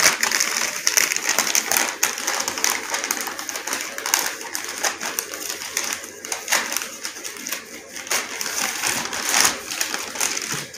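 White paper wrapping crinkling and rustling as it is unfolded and pulled open by hand: a steady crackle full of quick sharp snaps.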